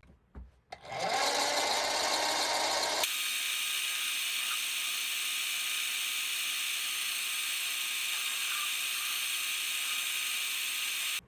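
A small power tool running steadily, a continuous hiss-like motor noise that shifts abruptly about three seconds in and stops suddenly at the end.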